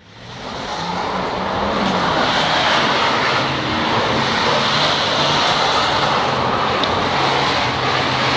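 BMW E39 530d's 3.0-litre straight-six turbodiesel running at high revs as the car slides on loose dirt, its rear wheels spinning with a steady rushing noise. The sound fades in over the first second.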